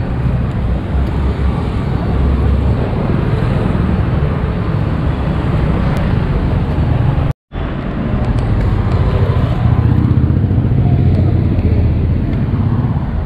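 Street traffic noise: a steady low rumble of passing vehicles, cut off for an instant about halfway through.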